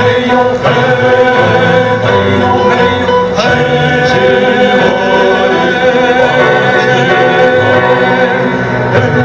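A male vocal quintet singing together into microphones, with electronic keyboard accompaniment.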